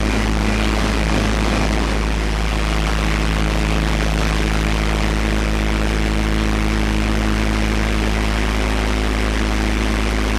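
Automated precast-concrete handling machinery running: a steady low drone with several constant tones over it, unchanging throughout.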